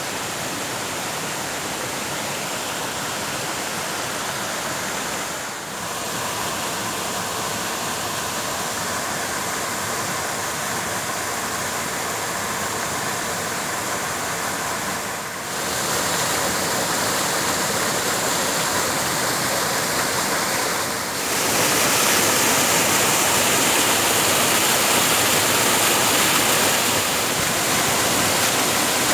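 Waterfall spilling over rock ledges into a pool: a steady rushing of falling water, which steps up louder about halfway through and again about two-thirds through.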